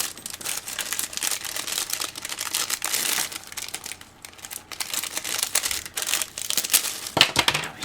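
Crinkly packaging being crumpled and handled in quick irregular crackles, as a handmade tag is unwrapped.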